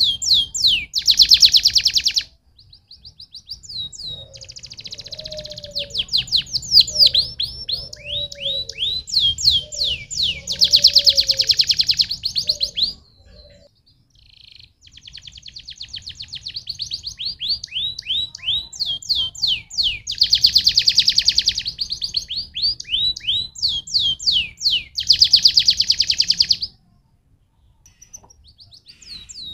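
Domestic canary singing a long, fast song of quick downward-sweeping whistled notes and rapid buzzing rolls. The song comes in long phrases, with brief pauses about two seconds in, about halfway through and near the end.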